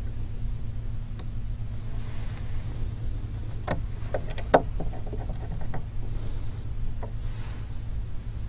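A few small, sharp clicks and taps from a precision screwdriver and tiny screws on a phone's metal parts, bunched about four seconds in with one more near the end, over a steady low hum.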